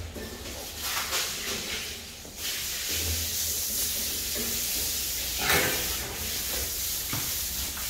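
Breeding boar snuffling and sniffing with breathy hissing through its snout, with a few short knocks.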